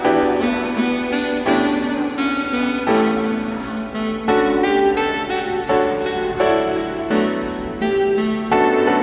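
Background music led by piano: instrumental with changing chords and notes.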